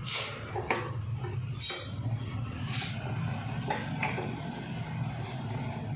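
Metal tools and parts clinking and knocking against each other in a series of separate strikes; one strike, a little under two seconds in, rings briefly. A steady low hum runs underneath.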